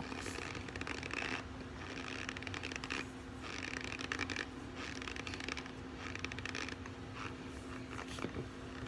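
Powdered cornstarch crunching as it is squeezed and crumbled between the fingers, in several spells of fine crackling about a second long each.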